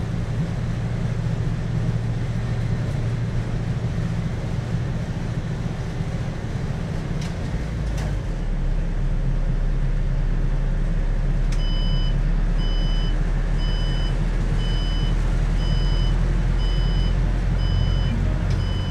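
Steady low running and road noise of a moving city bus heard from inside, growing a little deeper and louder about eight seconds in. From about eleven seconds in, a high electronic beep repeats about twice a second.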